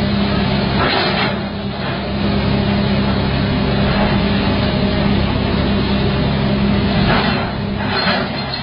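Hydraulic excavator's diesel engine running steadily with a constant low hum, over a noisy rumble. There are two louder rushing noises, about a second in and again near the end.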